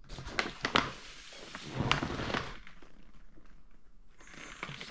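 Handling noises: a few light knocks in the first second, then a brief rustle about two seconds in.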